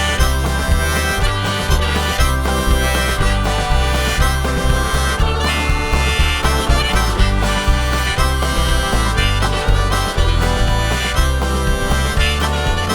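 Full band playing an instrumental break with a harmonica solo over bass, guitar and a steady drum beat.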